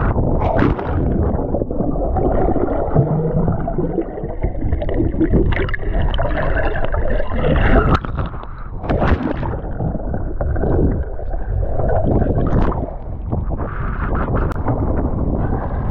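Sea water rushing and splashing around a kayak's hull and paddle as it is paddled through surf, heard close up with surges and gurgles as the water slaps past.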